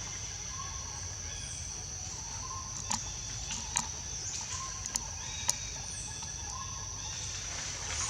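Outdoor ambience: a steady high-pitched drone, with a handful of sharp clicks in the middle and a few faint short chirps.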